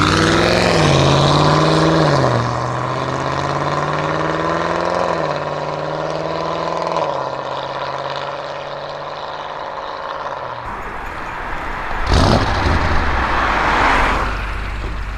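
Audi RS6 Avant C7's twin-turbo V8 through a Milltek exhaust accelerating hard. The pitch climbs and drops at each of three upshifts in the first seven seconds, then holds steadier and fades. A sudden loud rush of noise comes about twelve seconds in, and another near the end.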